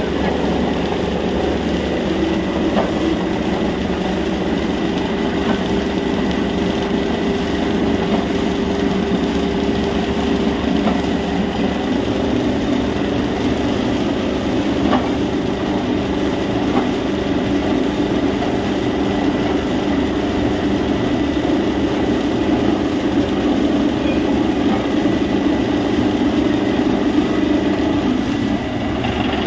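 Borewell drilling rig running steadily under load: a continuous engine and compressor drone mixed with the rush of water and rock cuttings blasting out of the bore's discharge spout.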